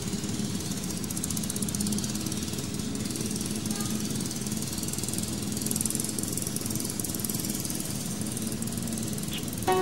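Steady low hum under an even hiss, with no music or voice.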